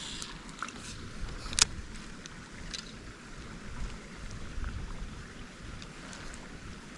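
Faint outdoor background with a low, uneven wind rumble on the microphone and a few light clicks, the sharpest about a second and a half in.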